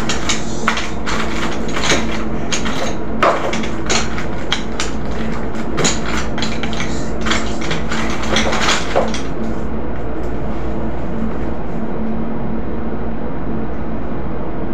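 Wooden-handled hammers knocking and clattering against one another and the concrete floor as they are gathered and set down in a row. The clatter stops after about nine seconds, leaving a steady background hum.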